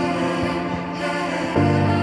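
Background music: sustained chords that change to a new, louder chord about a second and a half in.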